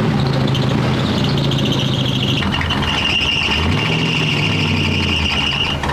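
Toyota FJ40 Land Cruiser engine running steadily. A steady high-pitched whine joins it about halfway through.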